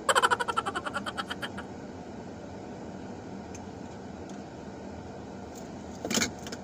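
Steady hum of air conditioning inside a car cabin. A rapid pitched trill of about a dozen pulses a second opens it, fading out over a second and a half, and a short, loud sound comes near the end.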